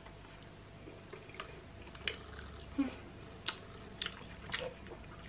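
A person chewing soft, chewy dried apple rings: a handful of faint, short mouth clicks at irregular intervals, mostly in the second half.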